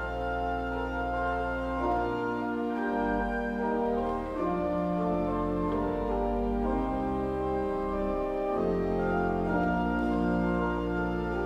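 Church organ playing slow, held chords over a deep sustained pedal bass, the chords changing every second or two.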